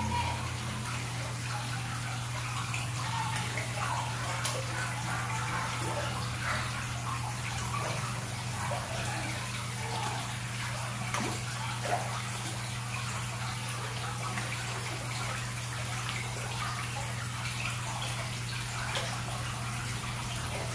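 Water pouring steadily into a koi pond, churning and splashing at the surface, over a low steady hum.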